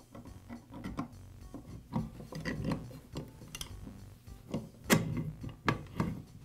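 A T-handle hex key and steel screws clicking and tapping against the stapler's metal base as the screws are started loosely by hand, with irregular sharp clicks, the loudest about five seconds in.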